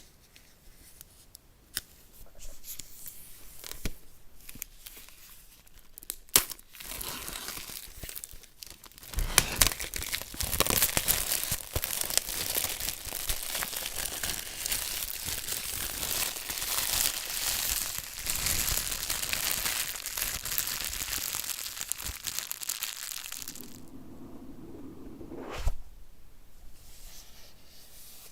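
Product packaging being unboxed. First come scattered small clicks and handling noises, then about fifteen seconds of continuous tearing and crinkling of the wrapping, and a single knock near the end.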